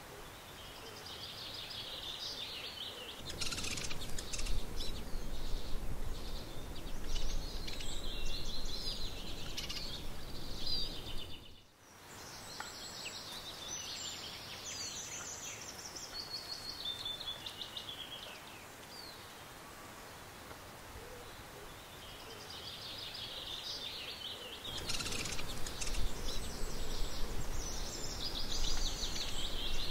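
Several small songbirds singing and chirping, with a low rumble underneath at times. The sound drops out briefly about twelve seconds in.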